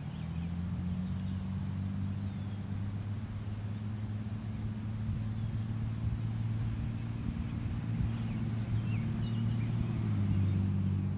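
A steady low motor hum with a few faint bird chirps above it.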